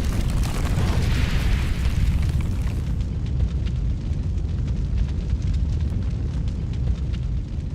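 A deep, sustained rumbling boom like an explosion sound effect, with a hissing crackle on top that dies away about three seconds in.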